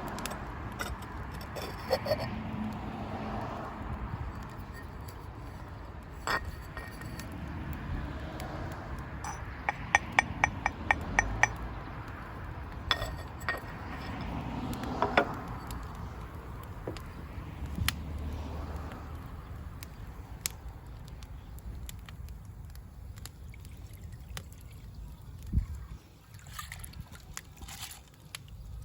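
Scattered small clinks and knocks with some liquid pouring and trickling, and a quick run of about eight sharp clicks around ten seconds in.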